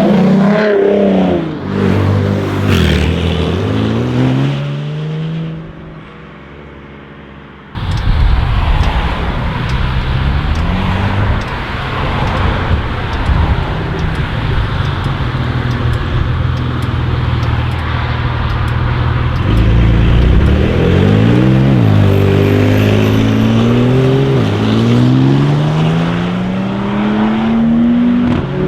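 Porsche 992 Carrera S twin-turbo flat-six revving and accelerating. The engine note fades away, then after an abrupt cut a loud rushing noise follows. Near the end the engine pulls hard again, its pitch climbing and dropping back several times as it shifts up through the gears.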